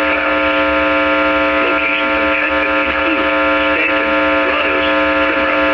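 Weather radio audio swamped by interference: a loud, steady buzzing whine with many overtones, with a faint broadcast voice barely audible underneath. It is the sign of a bad receiving signal.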